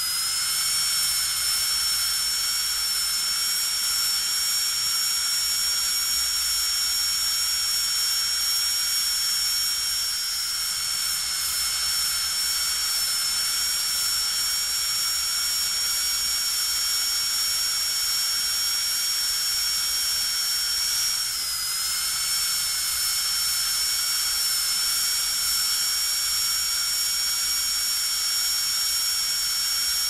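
Dentist's drill running at full speed with a steady high-pitched whine. About twenty seconds in, its pitch dips briefly and then comes back up.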